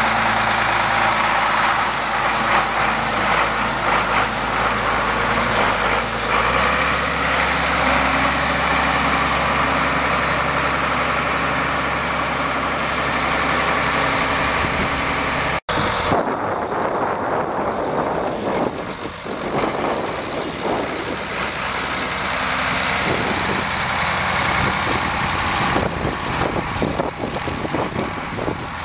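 Case 3594 tractor's six-cylinder 8.3 L turbo diesel running, its low note shifting about six seconds in as it pulls away. Past halfway the sound cuts off abruptly and resumes more uneven as the tractor drives.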